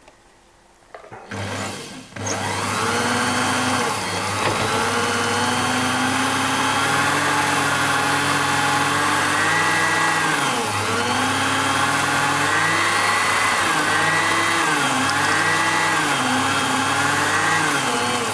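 Motorised fishing-line spooling machine starting up a second or so in and running steadily with a whirring hum, winding braided line back onto the reel through a grease-soaked felt pad. Its pitch sags briefly several times in the second half as the speed changes.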